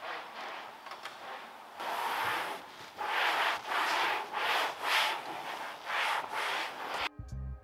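Hand scrubbing strokes on a car surface during detailing, rubbing back and forth about two times a second and getting stronger about three seconds in. Music cuts in just before the end.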